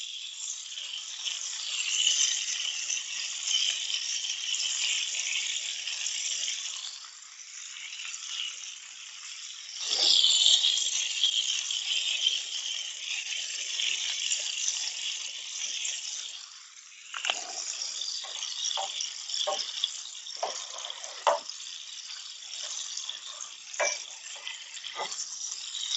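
Burger patties sizzling in a frying pan on a camp stove: a steady hiss that swells for a moment about ten seconds in. In the second half, a spatula clicks and scrapes against the pan.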